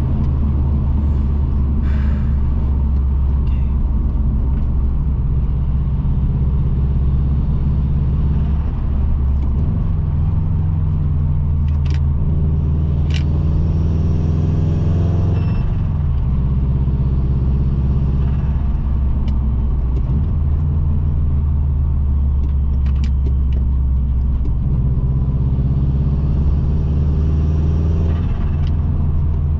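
Bugeye Subaru Impreza WRX's turbocharged EJ20 flat-four running under way, a steady low drone whose pitch drops and climbs several times as the revs change. A few brief clicks are heard in between.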